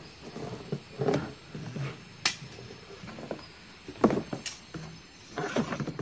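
Handling noise of a corrugated plastic vacuum hose being lifted and pulled out of a cardboard box: irregular rustling, scraping and knocks against the box, with a sharp click about two seconds in.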